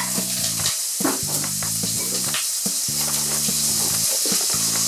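Diced onion, sliced garlic and bay leaves sizzling in hot olive oil in a pot, a steady frying hiss with scattered crackles. Background music with held low notes plays underneath.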